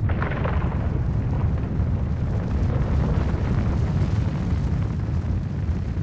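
Deep, steady rumble, a sound-design effect with most of its weight in the low bass and no separate hits or tones.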